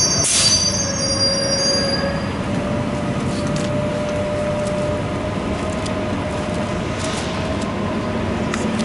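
A heavy vehicle passing in street traffic: a high-pitched brake squeal and a short hiss in the first two seconds, then a steady hum over a low rumble.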